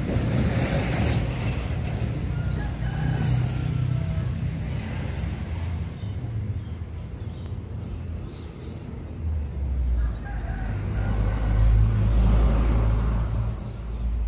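A rooster crowing, once about three seconds in and again around ten seconds in, over a steady low rumble that swells for a few seconds near the end.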